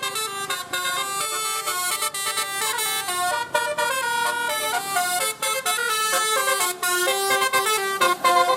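Bus 'telolet' horn, a set of tuned air horns, playing a quick tune of short notes that step up and down in pitch.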